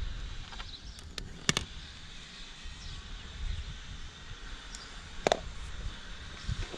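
A few sharp metallic clicks and knocks of hand tools on the radiator's mounting bolts as they are undone: three close together about a second in, and one louder knock near the end, over a low rumble.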